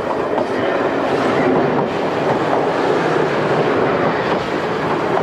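Steady, loud mechanical rumbling noise with no break or change, of the kind made by a moving vehicle.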